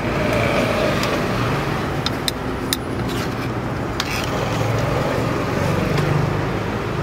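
Steady street traffic rumble, with a vehicle engine hum that swells and fades, and a few sharp clicks of a metal spatula tapping the steel egg-bread batter molds.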